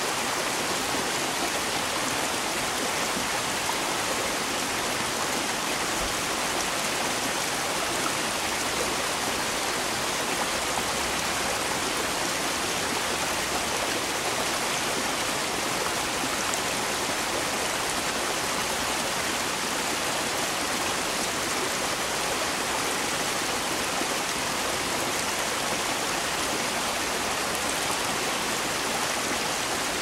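Small waterfall on a rocky mountain stream, water splashing steadily over the rocks in an even, unbroken rush.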